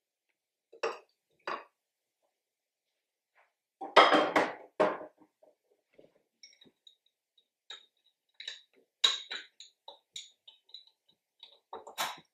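Glass knocking and clinking as a glass measuring jug and a glass swing-top bottle are handled on a table. The heaviest knocks come about four seconds in, followed by a run of small ringing clinks. A sharp clack near the end comes as the bottle's swing-top stopper is closed.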